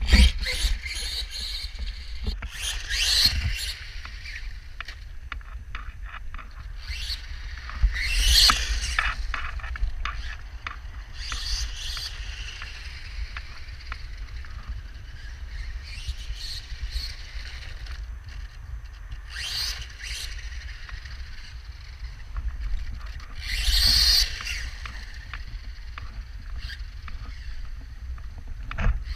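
New Bright Brutus toy monster truck fitted with a 7200Kv brushless motor, driven off-road: repeated bursts of motor whine and tyre noise as it accelerates, the loudest about 8 seconds in and near 24 seconds, over a steady low rumble.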